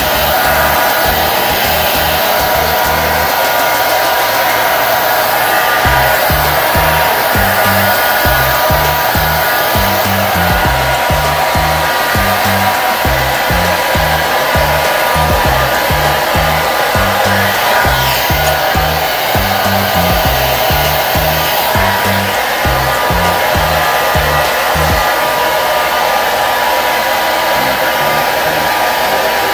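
Handheld hair dryer blowing steadily at a constant pitch on a wig, with a faint whine in its rushing air. A low bass line of background music runs under it, dropping out for a few seconds near the start and again near the end.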